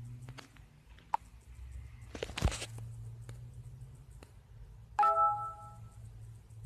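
LG K7 smartphone playing a short chime-like notification tone, several notes sounding together, about five seconds in. Before it come a few faint taps and a brief scuffing bump.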